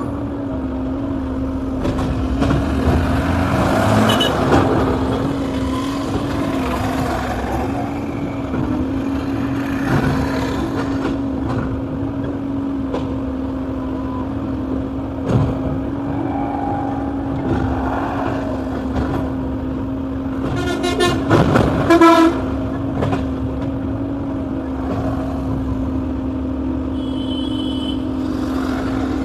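Excavator's diesel engine and hydraulics running with a steady drone. A vehicle horn toots briefly about two-thirds of the way through.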